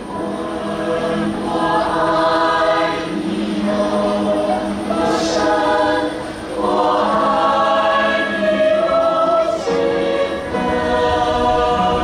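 High school choir singing a slow song in long held phrases of a few seconds each, with short breaks between them.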